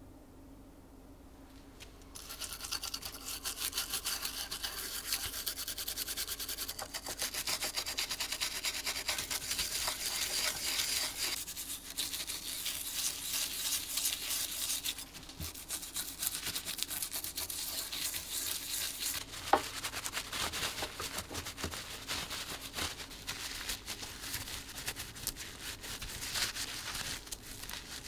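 A toothbrush scrubbing brass polish into an old brass keyhole escutcheon in quick, continuous back-and-forth strokes, starting about two seconds in. One sharp click stands out partway through.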